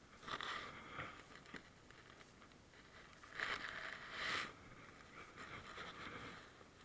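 Rain-jacket fabric rustling and scraping close to the microphone, in three short bursts.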